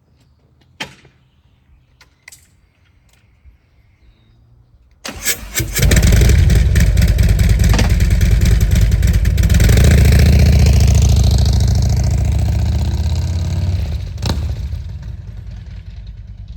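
A few sharp clicks, then a Harley-Davidson V-twin motorcycle engine is started about five seconds in: a brief crank and catch, then it runs loudly. It fades gradually over the last several seconds.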